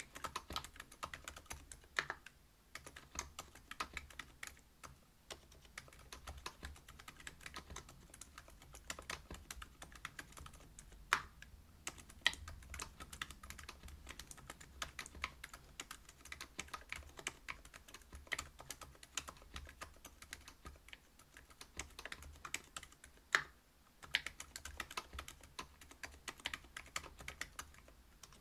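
Steady typing on a Whale 75 mechanical keyboard with stock Silent Alpaca 62 g linear switches, a brass plate and PBT keycaps: a quiet, muted patter of keystrokes, with two sharper single strokes, one near the middle and one near the end.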